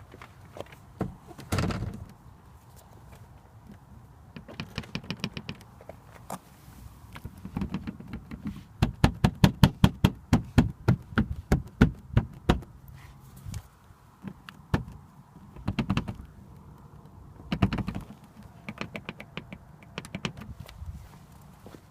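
Front fender of a BMW E92 rattling: a string of sharp knocks and clicks in groups, the loudest run about three to four a second in the middle, with shorter clusters before and after.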